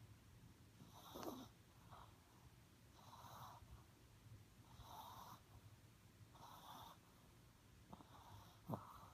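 Dog snoring softly in its sleep, a breath about every second and a half. A brief, sharper sound comes near the end, the loudest moment.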